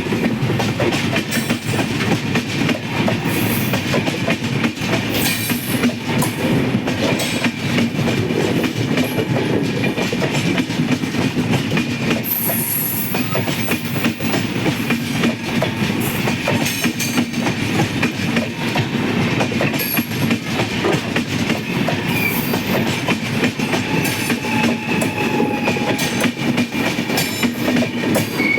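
Express passenger train running along the track, its wheels clattering over rail joints in a steady run of clicks, with a faint thin wheel squeal at times.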